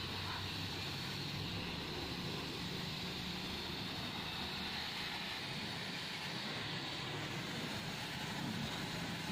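Pressure washer running steadily as its spray gun jets water onto a car's bodywork: a constant hiss of spray over a low motor hum.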